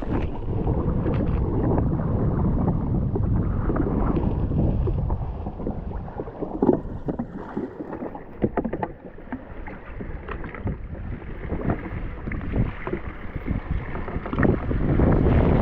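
Water lapping and slapping against a drifting jet ski's hull in irregular splashes, with wind buffeting the microphone.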